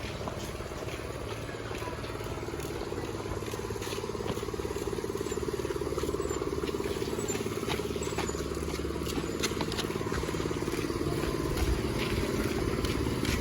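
A vehicle engine running steadily amid road traffic, growing gradually louder, with scattered small clicks and knocks.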